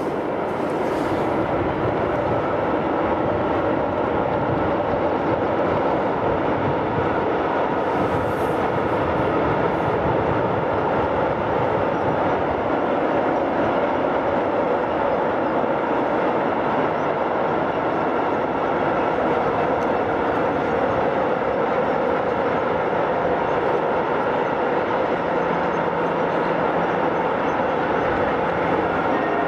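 Long freight train hauled by an electric locomotive rolling across a stone viaduct, the wagons passing in a steady, unbroken rumble of wheels on rail.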